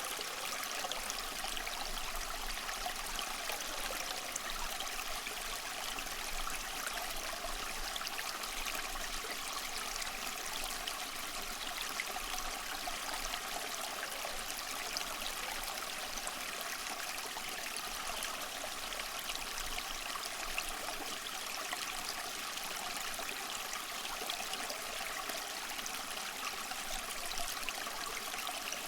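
Water trickling and splashing steadily down a small tabletop tower waterfall fountain, circulated by a submersible pump.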